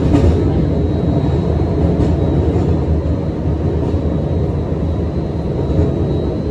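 Steady low rumble of a streetcar running along its track, heard from inside the passenger cabin, with a faint high steady tone above it.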